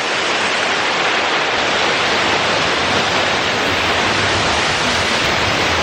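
Waterfall pouring, a loud, steady, even noise of falling water.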